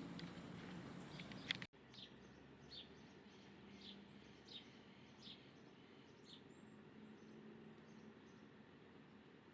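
Faint chirping of small birds: many short, high, downward-sliding calls, some arched thin notes, over quiet background noise. The sound cuts off abruptly about two seconds in, then resumes quieter.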